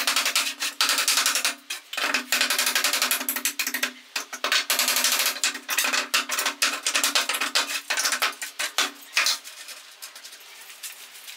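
Hammer striking wooden boards in fast, repeated runs of blows, easing off near the end.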